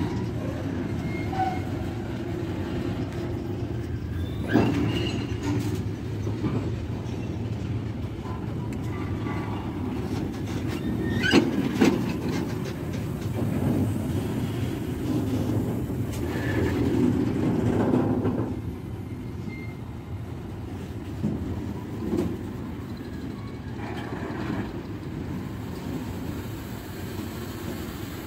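A train rolling past on the rails: a steady rumble of wheels with a few sharp clunks, a pair of them about eleven seconds in, and brief faint wheel squeals.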